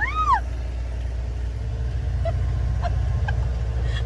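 Steady low rumble of a car rolling slowly, heard from inside the cabin. A short high cry that rises and falls in pitch sounds right at the start.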